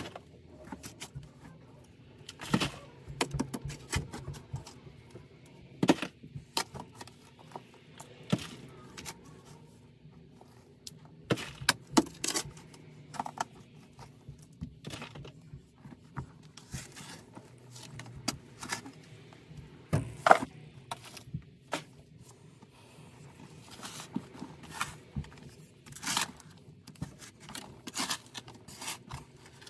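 Hand digging with a short shovel in packed soil: irregular scrapes and sharp chops of the blade, some of them loud knocks, coming every second or few seconds.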